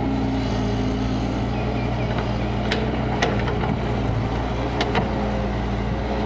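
Kobelco hydraulic excavator's diesel engine running steadily, with three short sharp knocks in the middle of the clip.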